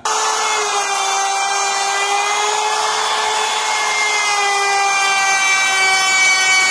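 Handheld trim router running at full speed while cutting a shallow recess into a wooden wardrobe door panel: a steady high whine with several tones over the hiss of the bit chewing through the board.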